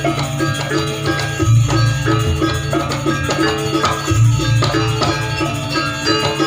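Janger gamelan ensemble playing: metal-keyed instruments strike a fast repeating melodic figure over drums, with a deep low stroke returning about every two and a half seconds.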